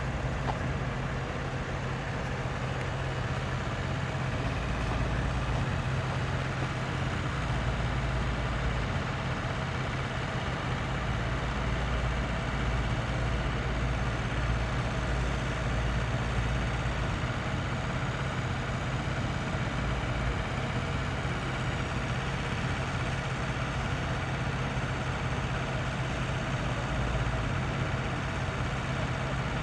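Heavy diesel engine idling with a steady low drone.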